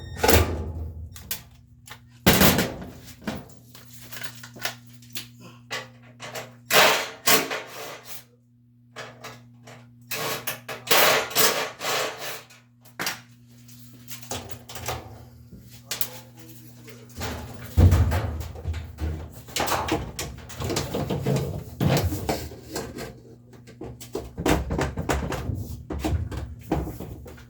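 Irregular knocks, clunks and scraping from hands and tools working on the washer's parts, over a steady low hum.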